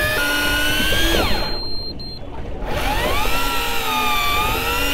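Electric fishing reel's motor whining as it winds line up from deep water with a fish on. It winds down and stops about a second and a half in, then starts again about a second later, its pitch rising as it picks up speed.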